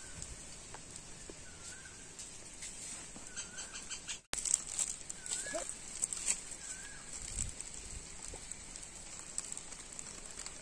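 Outdoor rural ambience: short bird chirps come several times over a steady high-pitched background hiss. The sound drops out briefly about four seconds in.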